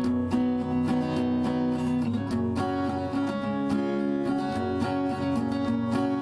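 Background music: steadily strummed acoustic guitar.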